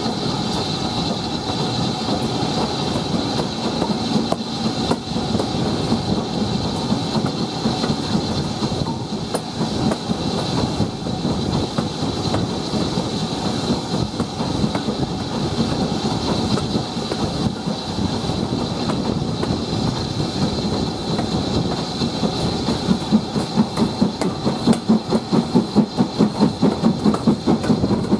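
BR Standard Class 4 2-6-4T steam tank locomotive no. 80151 hauling its train, heard from the coach just behind it: a steady rumble and clatter of wheels on the rails. About four-fifths of the way through, the engine's exhaust beats come up loud and regular, about three a second.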